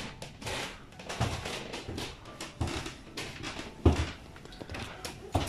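Footsteps and knocks on a wooden loft floor: a few separate thumps, the loudest about four seconds in.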